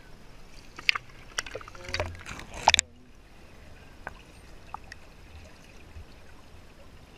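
Water splashing and gurgling around a camera at the surface, louder near the end of the splashing, then the camera goes under about three seconds in and the sound turns muffled and dull, with a few faint underwater ticks.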